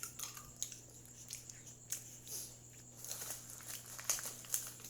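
Close-up eating sounds: chewing with small crunches and clicks, from girls eating chocolate sandwich biscuits and bread.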